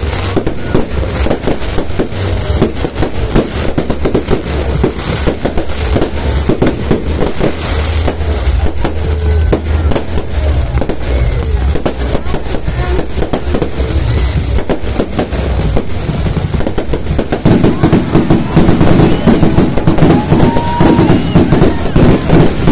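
Fireworks going off in quick succession, a dense stream of crackling pops and bangs. About three-quarters of the way in it becomes louder and denser.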